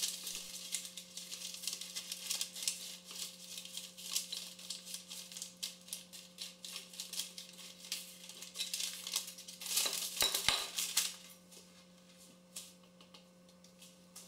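Parchment paper crinkling and rustling as a wooden rolling pin is rolled over it on a baking sheet, with louder rustling about ten seconds in. A faint steady hum sits underneath.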